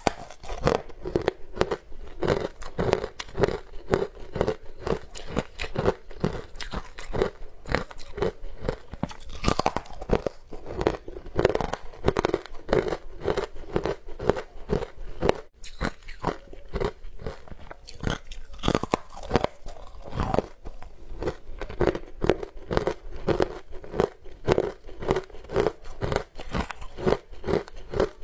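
Close-miked crunching and chewing of a crumbly, green-coloured block of sweet ice, bitten off in pieces. It makes a rapid run of crisp crunches, several a second, with a short lull about halfway through.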